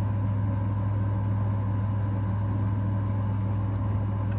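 Steady low electrical hum, unchanging, with fainter higher tones above it.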